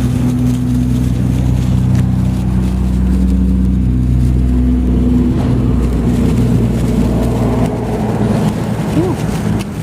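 A loud, steady engine-like drone of several low tones that shift slightly in pitch every few seconds.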